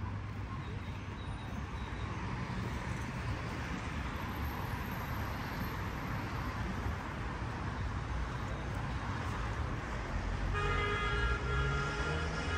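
Road traffic: cars passing on the adjacent road, a steady rumble with tyre noise. About ten seconds in, a steady high-pitched tone joins and holds.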